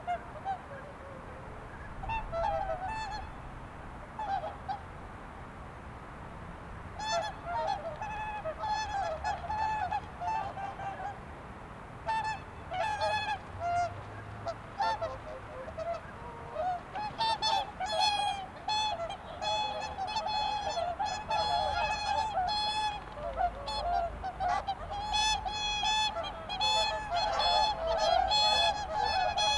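Swans honking: short, nasal calls that come a few at a time at first, then grow more frequent and run almost without a break through the second half.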